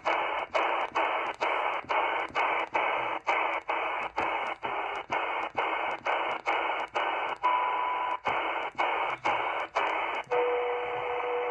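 XHDATA D808 shortwave receiver in upper-sideband mode giving out band hiss as it is tuned up in quick steps. The hiss drops out briefly about two and a half times a second, and a short whistle of a carrier passes about two thirds of the way through. About a second before the end the dropouts stop, and steady beat whistles from a carrier near 15 MHz sit in the hiss.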